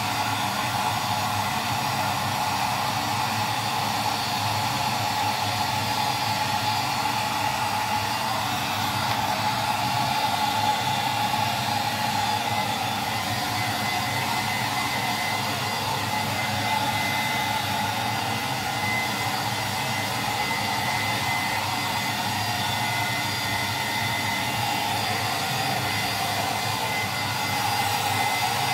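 Hair dryer running steadily without a break, blow-drying a dog's coat.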